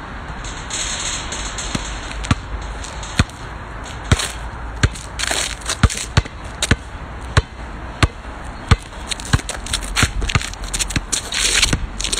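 Basketball being dribbled on an asphalt court: a string of sharp, irregular bounces that starts a couple of seconds in and comes faster in the second half.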